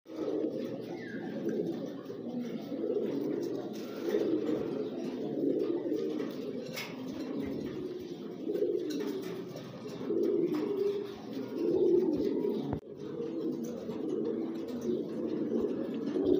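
Gaditano pouter pigeons cooing almost without a break, low coos that swell and fade over and over.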